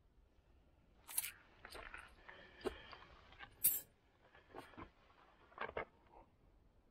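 A handful of coins dropped onto a stone shrine's offering ledge, clinking among the coins already there: several sharp clinks spread over a few seconds, some with a brief ring.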